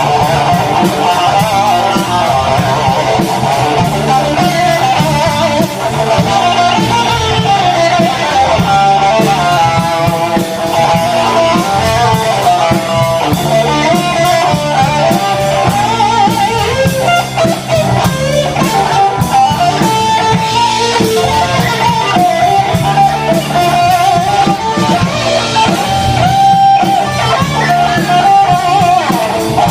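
A live band playing, with guitar to the fore over bass and a drum kit, the music running on throughout.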